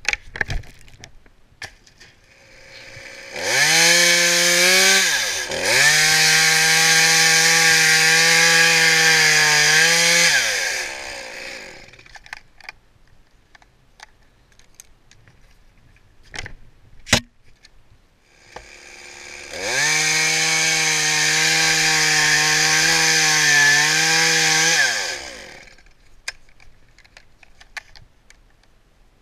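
Chainsaw run at full throttle to cut wood, twice: a first cut of about seven seconds with a brief drop in revs near its start, then a second cut of about six seconds, each falling away as the throttle is released. Between the cuts there is a sharp knock.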